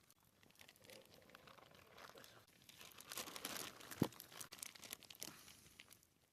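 Quiet crinkling and tearing rustles as bread dough is pulled and handled, with one sharp knock about four seconds in.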